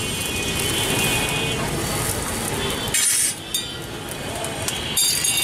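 Metal spatula scraping and clinking on a large flat iron griddle as an omelette is turned. There is a sharp scrape about three seconds in and another near the end, over street traffic noise.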